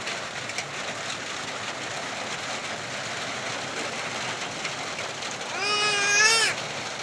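Steady hiss of heavy rain. About five and a half seconds in, a single drawn-out wavering cry, lasting about a second, rises above it as the loudest sound.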